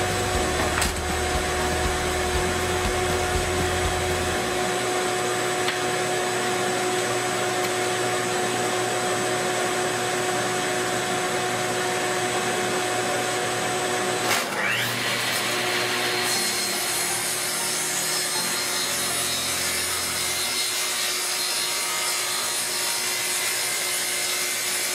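Table saw running with a steady whine while a board is ripped. About fifteen seconds in the sound breaks briefly, rises in pitch, and then carries more cutting hiss.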